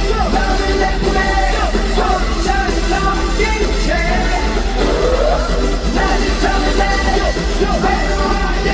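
Live pop music played loud through concert sound-system speakers, with singing voices and yells over it.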